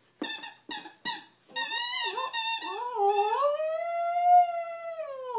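Small dog howling: a few short yelps, then one long howl that rises, holds and sinks at the end.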